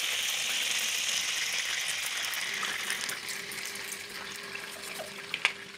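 Melted margarine sizzling in a frying pan over high heat while ketchup is poured in, the sizzle slowly dying down. A faint steady hum comes in partway through, and there are a couple of light clicks near the end.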